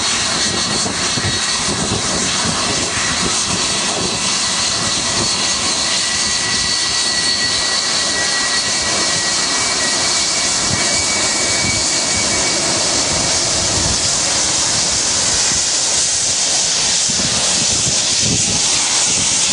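Jet airliner's turbofan engines running close by as it taxis: a steady loud rush with a high whine that fades out about two thirds of the way through, the rush growing a little stronger near the end.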